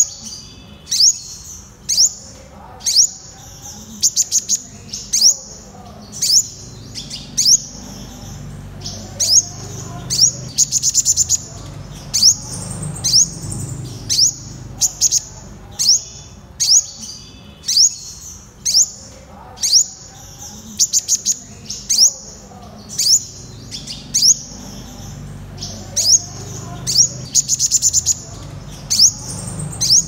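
Male purple sunbird calling: sharp, high, rising chip notes about once a second, broken now and then by short, fast runs of notes.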